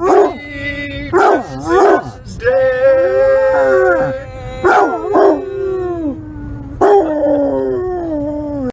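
Basset hound howling: long drawn-out howls, one held steady and then sliding down in pitch, broken by several short sharp yelps.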